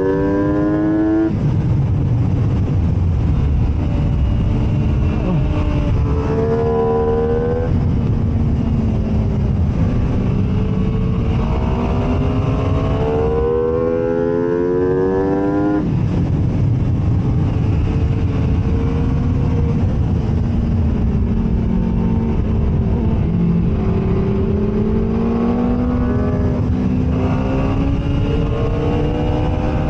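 MV Agusta F3's inline three-cylinder engine under hard acceleration on a race track, its pitch climbing and then dropping several times as it changes gear, with a long stretch of steadier, slowly rising revs in the second half. A steady low rush, like wind, runs underneath.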